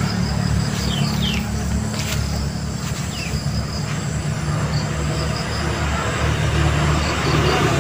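A steady low engine-like drone, with a few short high chirps over it in the first half.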